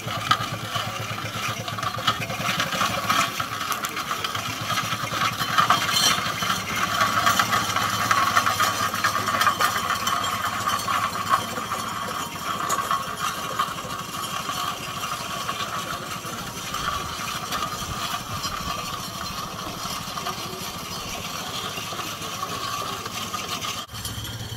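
Scale-model Case steam traction engine running under way, a steady fast stream of exhaust beats with mechanical clatter.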